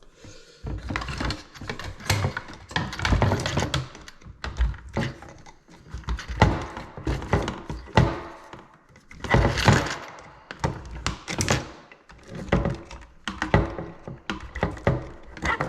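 Plastic refrigerator control-panel parts and wiring being worked out of their housing by hand: a run of irregular knocks, clicks and scraping, coming in clusters.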